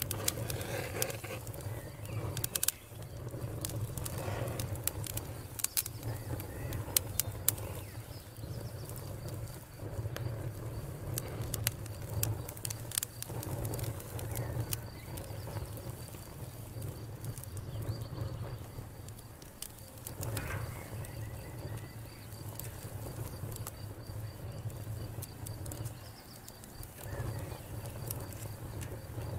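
Wood campfire crackling, with irregular sharp pops scattered throughout, over a steady low rushing noise.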